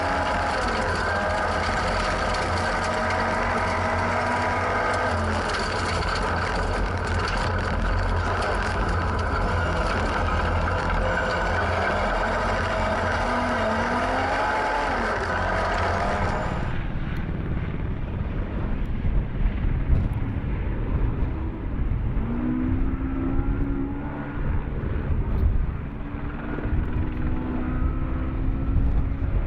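Ford Escort RS 1800 rally car engine running hard at steady high revs. About two-thirds of the way through the sound changes abruptly to a duller recording of the engine revving up and dropping back again and again through gear changes.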